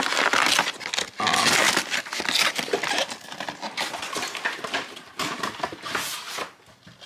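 Crinkling and rustling of trading-card packaging being handled, plastic wrap and cardboard of a Pokémon Urshifu V box, in irregular bursts that die down near the end.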